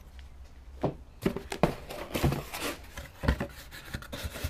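Cardboard box being opened and handled: a quick run of knocks, clicks and rustles of cardboard flaps and packaging, starting about a second in.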